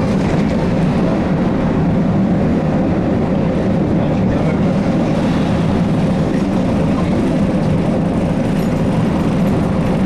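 Steady running noise inside the cabin of a moving ZiU-682G trolleybus: an even, loud rumble of the vehicle on the road.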